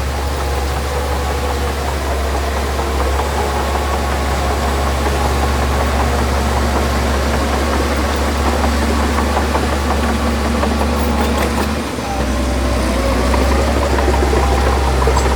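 Heavy diesel engine of earthmoving machinery running steadily. It dips briefly about twelve seconds in, then runs a little louder.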